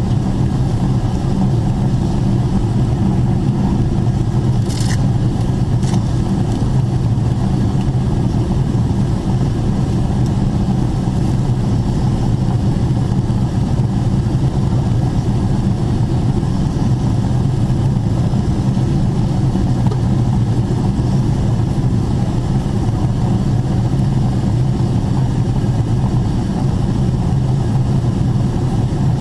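Steady low cabin drone inside a Boeing 777-300ER in descent: its GE90 jet engines and the air rushing past the fuselage, heard from a window seat over the wing. A brief sharp click about five seconds in.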